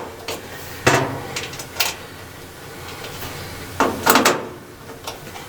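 Metal dryer panels and parts being handled during disassembly: three clunks a second or two apart, the last one longer, with a rattling scrape.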